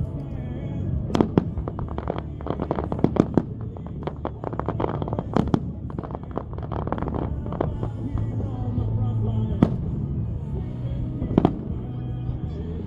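Fireworks display going off: a dense run of rapid crackling pops and bangs over the first half, then a few single louder bangs, with music playing underneath.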